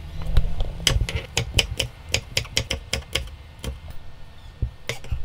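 Kitchen knife chopping chili peppers on a wooden cutting board: a quick run of sharp chops, about four a second, then a single knock near the end.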